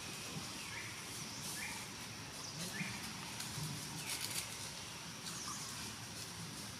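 Outdoor forest ambience: a steady hiss with short, high chirps about once a second in the first few seconds, and a brief rustle about four seconds in.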